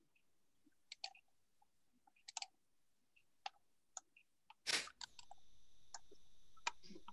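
Faint scattered clicks, like a computer mouse and keyboard, heard over a video-call line. About four and a half seconds in there is a short burst of noise, after which a participant's microphone is open: a steady hiss with a faint high whine.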